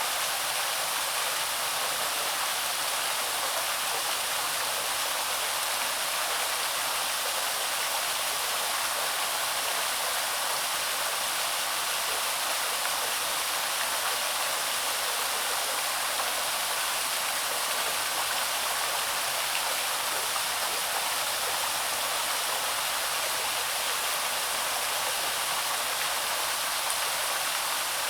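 Small waterfall on a woodland stream: water pouring and splashing in a steady, even hiss with little low rumble.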